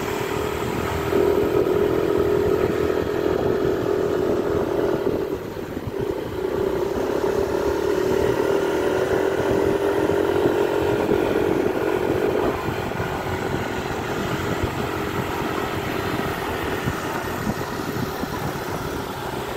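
Motorcycle engine pulling hard up a steep winding climb. The engine note rises, drops briefly about five or six seconds in, climbs again, then eases off after about twelve seconds.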